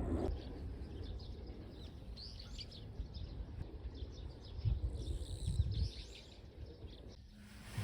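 Small birds chirping repeatedly in short high calls over a low outdoor rumble that swells about five seconds in; the sound drops and changes shortly before the end.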